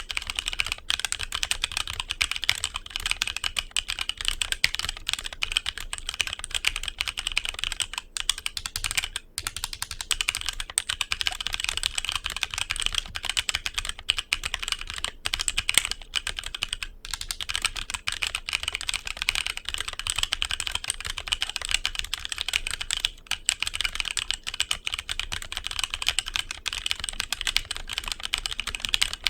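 Continuous fast typing on a HyperX Alloy Origins Core mechanical keyboard with HyperX Aqua tactile switches: dense, rapid keystroke clacks with a few short pauses.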